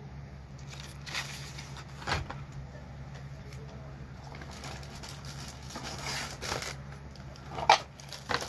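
Scattered crinkling and rustling of product packaging being handled, with two sharp clicks near the end, over a steady low hum.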